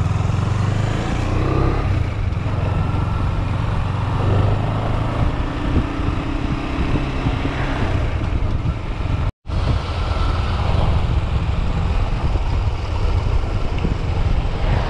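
Motorcycle engine running as the bike rides along, heard close up from the handlebars. The sound cuts out completely for a split second about nine seconds in.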